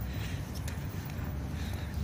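Outdoor background ambience: a steady low rumble with a few faint ticks.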